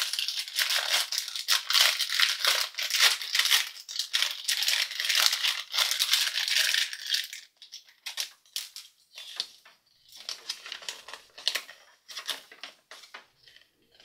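A plastic blind bag crinkles and rustles loudly as it is torn open and unwrapped. After about seven and a half seconds it gives way to quieter, scattered clicks and rustles as the small plastic toy train and a paper checklist are handled.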